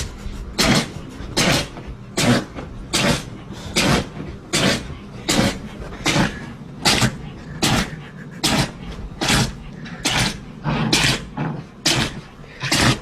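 A dog sneezing over and over in a steady series, a short sharp sneeze about every three-quarters of a second, some sixteen in all.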